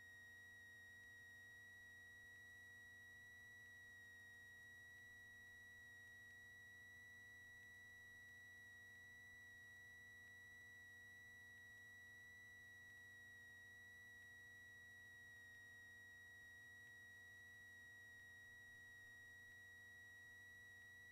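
Near silence with a faint, steady high-pitched whine that does not change.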